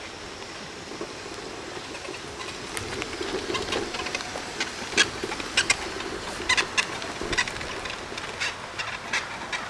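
Permobil F3 power wheelchair driving along a dirt trail: a steady motor hum with irregular clicks and crackles from the wheels on the path, which begin a couple of seconds in.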